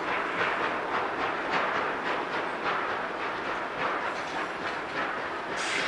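Distant steam locomotive working hard, its exhaust chuffing in a steady rhythm of about three beats a second, with a brief sharper burst near the end.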